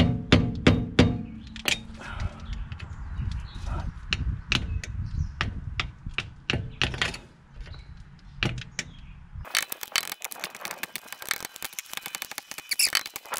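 Hammer striking a screwdriver held against the staked collar of a car's front axle nut: sharp metal-on-metal taps, roughly two or three a second with short pauses, knocking out the indentation that keeps the nut from coming loose. After about nine and a half seconds the taps give way to a quick run of small clicks and scrapes.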